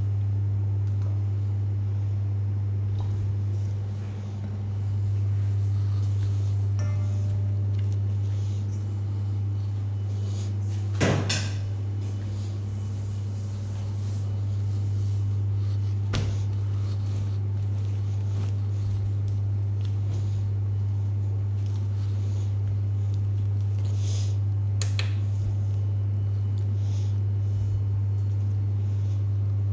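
Steady low hum with a few sharp knocks and clatters over it, the loudest about eleven seconds in and others near sixteen and twenty-five seconds.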